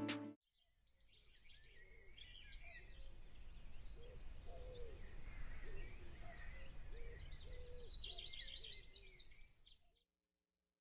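Faint outdoor ambience of birds chirping and calling over a low steady rumble, fading in about a second in and fading out near the end.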